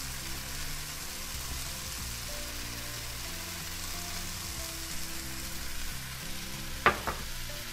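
Sliced onions frying in a pan as they caramelize, a steady sizzle with sugar just sprinkled over them. Soft background music with held tones underneath, and a short sharp sound near the end.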